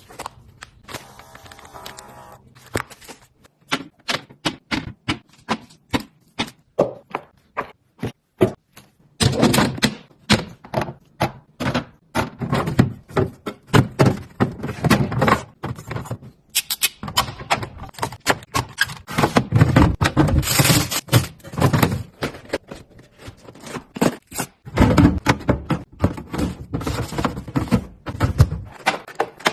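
Plastic storage boxes and food packages being set down, slotted into place and handled while a refrigerator is organised: a quick series of light clacks and knocks, with three longer stretches of busier handling and rustling.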